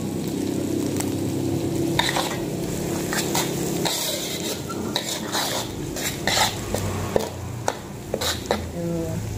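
Metal spatula scraping and knocking against a steel wok, over the sizzle of shallots, garlic, shrimp paste and sausage frying in oil. The stirring strokes come thick and fast from about two seconds in. The shallots and garlic are cooked through and fragrant.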